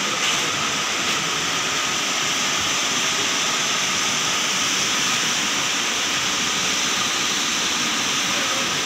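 Steady rushing of water pouring over a reservoir weir's overflow crest, an even hiss with no break.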